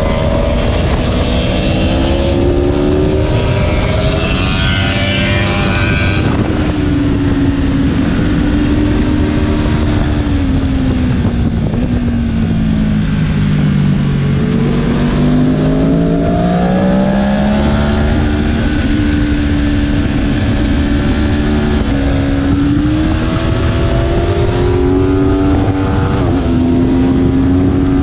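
Aprilia Tuono V4 1100's V4 engine at speed, heard from on board the bike. Its pitch falls as the rider slows for a corner about halfway through, then climbs as the bike accelerates hard out of it, with quick dips in pitch at the gear changes near the end.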